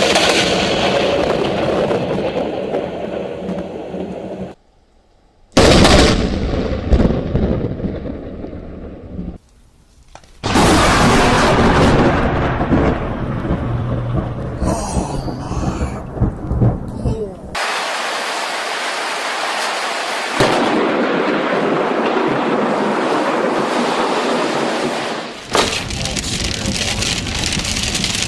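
Thunder and heavy rain from a thunderstorm, heard in a run of separate short clips with abrupt changes. Twice, about five and a half and ten seconds in, a brief quiet gap is broken by a sudden loud burst of thunder.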